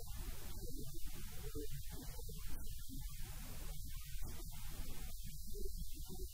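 Low, steady electrical hum with faint indistinct sounds above it.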